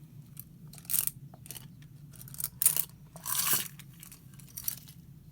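Paper clips being pushed and sorted by hand on gift wrap paper: a handful of short rustling scrapes, the longest about three and a half seconds in.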